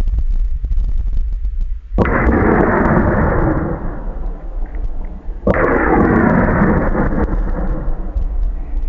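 Two gunshots about three and a half seconds apart, each followed by a long rolling echo that dies away over a couple of seconds, over a steady low rumble.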